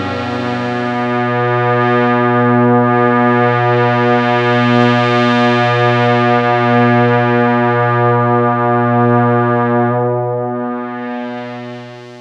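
Korg Minilogue analog synthesizer preset holding a sustained chord over a low bass note, its upper tones pulsing steadily. The sound grows brighter in the middle and fades away near the end.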